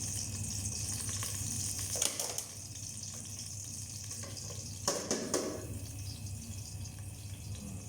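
Onion and garlic sizzling in a little hot oil in the pan, a steady hiss, with brief clatters about two seconds and five seconds in.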